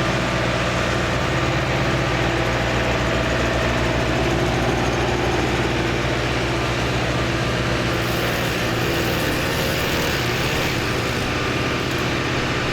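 An engine running steadily at an even idle, with a low, unchanging hum.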